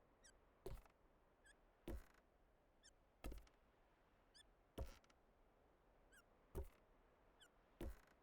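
Hiccups at a steady, slightly uneven pace, six in all, about one every one and a half seconds. Each is a faint high squeak followed by a short, sharp hic.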